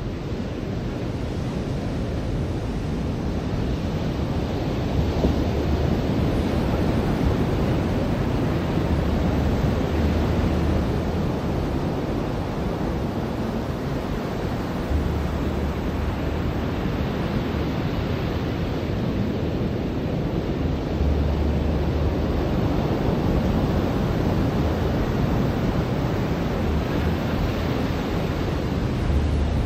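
Ocean surf washing onto a beach, a steady wash of noise that swells and eases every few seconds, with wind rumbling on the microphone now and then.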